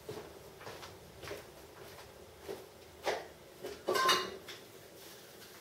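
Objects knocking and clattering as someone rummages for something, with scattered light knocks and a louder clatter with a brief ring about four seconds in.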